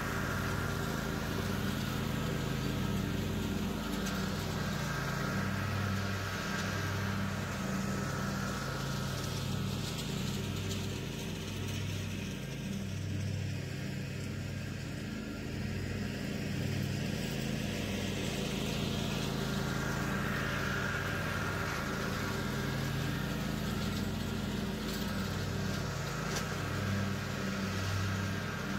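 Toro TimeCutter zero-turn mower's engine running steadily as the mower drives across the lawn towing a tow-behind spike aerator. Its higher sound fades in the middle and comes back later.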